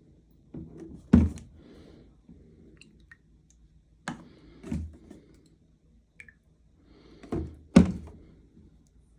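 About five dull thumps and knocks, loosely in pairs, from handling the washing machine as it is loaded and readied for a wash. The loudest come about a second in and just before the end.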